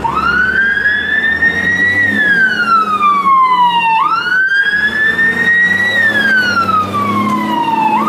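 Scania fire engine's siren wailing, rising slowly in pitch and then falling, about four seconds to each cycle, twice, over the low rumble of the truck's engine.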